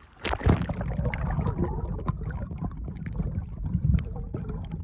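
Water splashing and lapping around a kayak, in many small irregular splashes, over a steady low rumble of wind on the microphone.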